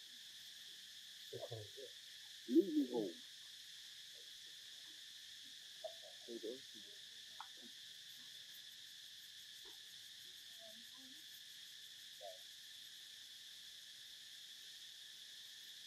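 Steady high insect chorus, with a few short pitched calls over it, the loudest about three seconds in.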